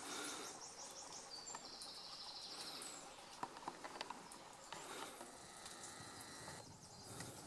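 Faint woodland ambience: a small bird gives a short trill about two seconds in, with a few more high chirps and some light clicks later on.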